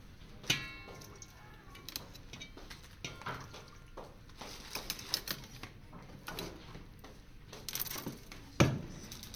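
Kitchen clatter: scattered clicks and clinks of utensils and dishes being handled, with a ringing clink about half a second in and a louder knock near the end.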